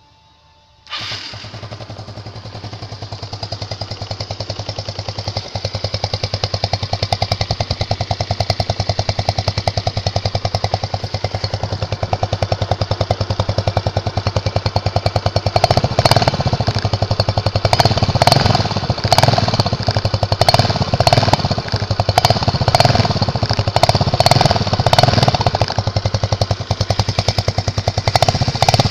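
Yamaha Mio Sporty scooter's single-cylinder four-stroke engine starting about a second in, then idling through a tin can slipped over the tailpipe as a homemade open muffler. From about halfway, the throttle is blipped again and again, each rev louder than the idle.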